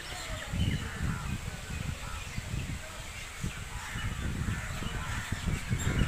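Birds calling from a roosting tree at dusk: crows cawing among scattered short chirps of smaller birds. Gusts of wind rumble on the microphone in uneven waves.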